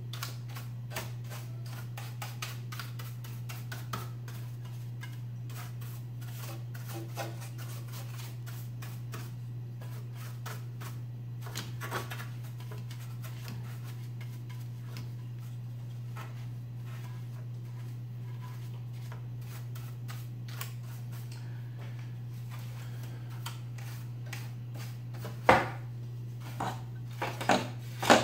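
Paintbrush bristles scratching and flicking over the metal chassis and circuit boards inside an opened CRT monitor: a dense run of small clicks and scrapes over a steady low hum. A few louder knocks come near the end.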